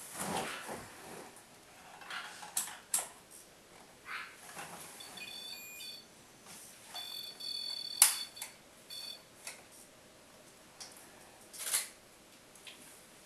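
High electronic beeping from a small device: a beep about five seconds in, a longer one about two seconds later and a short one near nine seconds. Scattered clicks and rustles of handling and movement, with a sharp click about eight seconds in.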